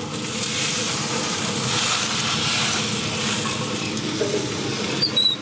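Thick bone-in ribeye (cowboy steak) searing over open flames on very hot grill grates, a steady sizzle with a low hum underneath.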